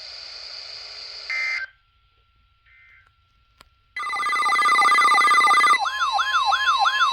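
Emergency alert broadcast between messages: a hiss cut off by a short burst of data squawk, a second or two of near silence, then about four seconds in a loud weather radio alert starts, a steady high tone with a siren-like warble sweeping up and down about three to four times a second on top of it.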